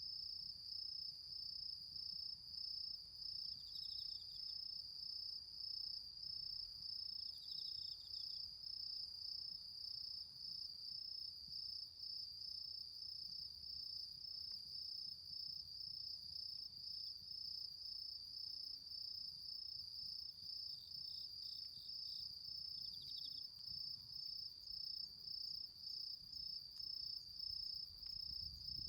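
Autumn crickets chirping in a steady, rapid trill, with a few short chirps from another insect now and then.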